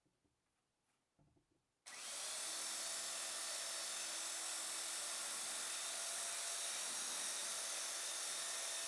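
Handheld electric sander starts about two seconds in after near silence, then runs steadily against a solid wood side piece, sanding it flush where it meets the centre piece.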